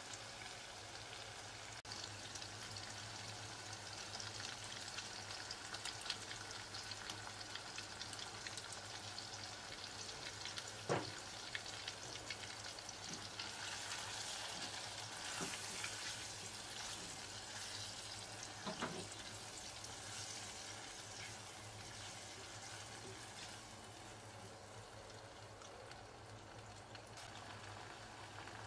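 Shrimp and onions frying in a pot, a continuous crackling sizzle, with a silicone spatula stirring and scraping through them. The spatula knocks sharply against the pot twice, about eleven and nineteen seconds in, and the sizzle softens near the end as the sauce cooks down.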